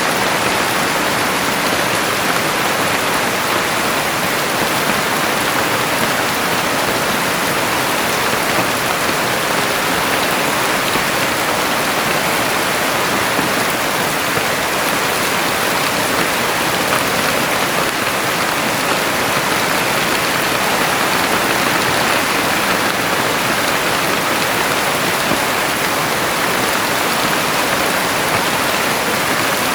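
Heavy rain falling steadily, a dense even hiss of drops that does not let up.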